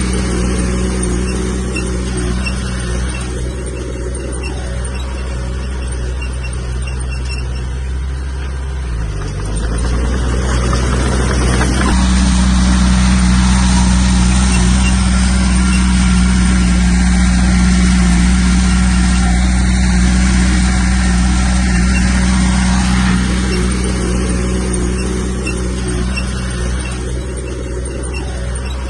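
Diesel engine of heavy earthmoving machinery running steadily. Its pitch dips briefly about nine seconds in, then it runs louder from about twelve seconds in and eases off again near the end.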